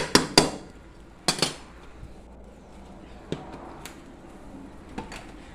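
Kitchen clatter: a few sharp clinks and knocks of pots and utensils in the first second and a half, then a few faint taps.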